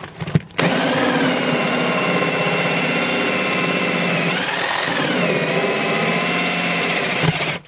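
Cordless drill running a hole saw through a wooden floor joist, its motor whining steadily at full speed after a few short knocks as it starts. About four seconds in, the pitch sags and then recovers as the saw bogs under load.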